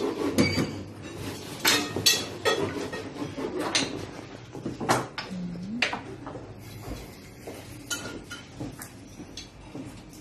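Irregular clinks and knocks of hard objects being handled, louder in the first six seconds, with a short rising squeak about five seconds in.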